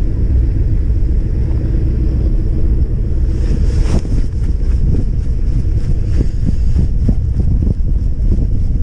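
Strong wind buffeting the microphone, a heavy steady low rumble, with a brief louder rush about three and a half seconds in.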